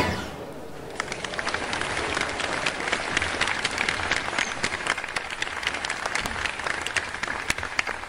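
Audience applause: a dense patter of many hands clapping that starts about a second in and begins to fade near the end.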